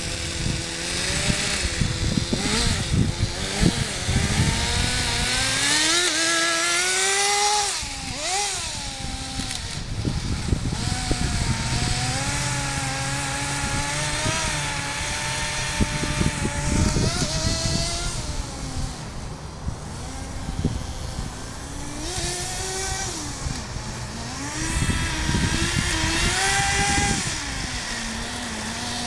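Kyosho Nitro Blizzard RC snowcat's 0.11 nitro engine running, its pitch rising and falling again and again as the throttle is opened and closed while the tracked model drives.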